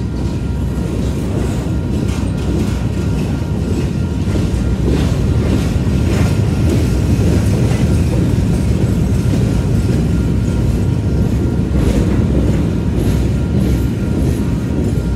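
Covered hopper cars of a BNSF grain train rolling past: a steady, loud rumble of steel wheels on the rails, with scattered clicks from the wheels.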